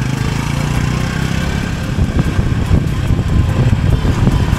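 Honda Super Cub's single-cylinder four-stroke engine running steadily under way, with wind rushing over the microphone as the bike moves.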